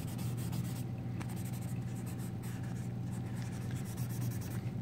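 A folded piece of paper loaded with graphite rubbing over drawing paper in short back-and-forth strokes, toning in shadows. A steady low hum runs underneath.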